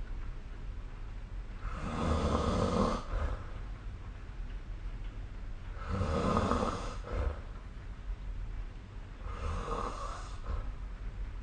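A sleeping person snoring: three snores about four seconds apart, each lasting about a second, over a steady low hum.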